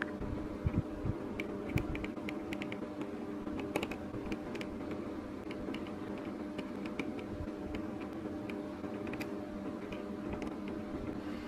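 Small plastic mini building bricks clicking and tapping as fingers press them onto a model, with a few soft handling bumps in the first two seconds, over a steady low hum.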